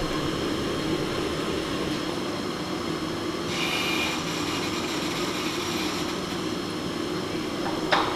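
Steady rumble of the steel wheels of a shop crane and a caster dolly rolling over a concrete floor under a Nissan Leaf electric drive unit. A harsher, higher noise joins about halfway through, and there is a sharp click near the end.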